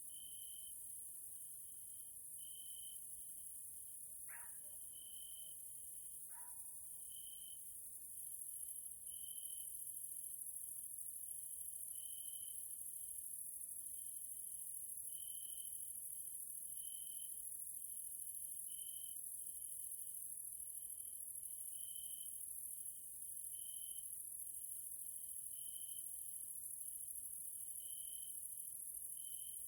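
Grasshoppers stridulating: a continuous high-pitched hiss. Over it, a lower chirp repeats about every second and a half to two seconds. Two brief falling whistles come about four and six seconds in, and the chorus grows a little louder after about eight seconds.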